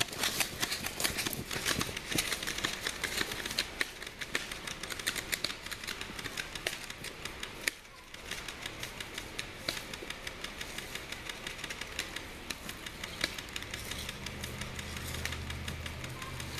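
Airsoft guns firing in rapid, irregular clicks and pops, with a short lull about eight seconds in.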